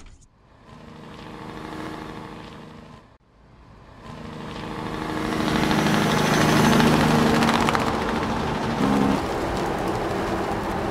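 Farm machine's engine running, heard from inside its cab. It cuts in after a short near-silent gap, drops out briefly about three seconds in, then builds louder and holds steady.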